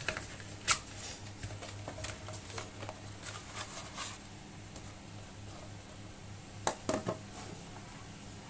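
Cardboard retail box handled and a plastic 2.5-inch hard drive enclosure slid out of it, with rustling and small clicks and one sharper click. Near the end, a few light knocks as the enclosure is set down on a wooden table.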